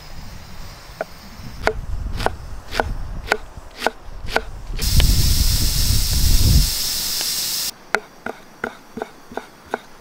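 Knife chopping vegetables on a wooden board in even strokes about twice a second. About five seconds in, steam hisses steadily from the Afghan cauldron's pressure valve over a low rumble, cutting off sharply after about three seconds. Then quicker knife chopping of dill on the board, about three strokes a second.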